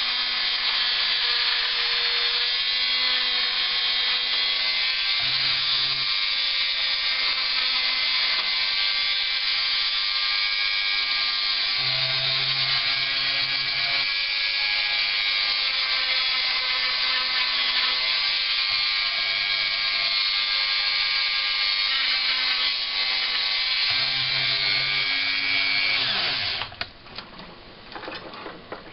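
Small high-speed electric rotary tool running steadily with a high whine, its pitch wavering slightly as it bites. It cuts off about 26 seconds in, followed by light clicks and handling noises.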